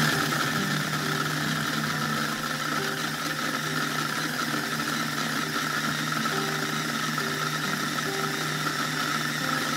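Electric mini food chopper's motor running steadily, its blades churning rolled oats and dried apricots.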